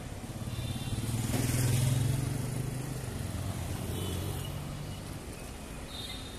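Street traffic with a motorcycle engine passing close by, growing louder to a peak about two seconds in and then fading, over the steady hum of other vehicles.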